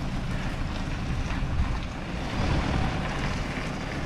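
Wind blowing on the microphone outdoors: a steady, noisy rush, heaviest in the low end.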